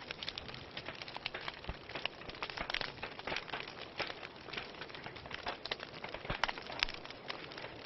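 Wood fire crackling in a fireplace: burning logs give off irregular sharp pops and snaps over a soft steady hiss.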